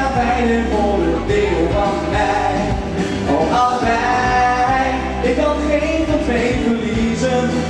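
Pop song performed live: a male voice sings into a handheld microphone over instrumental backing.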